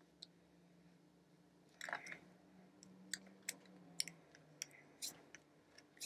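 Faint scattered clicks and smacks from a person signing, made by hand contact and mouth noises. A low steady hum runs underneath for the first four seconds.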